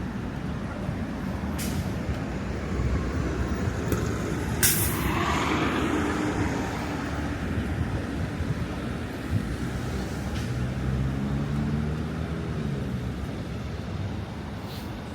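Downtown street traffic rumbling, with a heavy vehicle's air brakes letting out a sharp hiss about four and a half seconds in. Later a heavy engine speeds up and then eases off.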